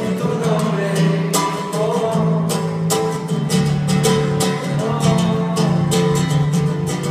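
Live music: an acoustic guitar strumming chords steadily, with singing over it.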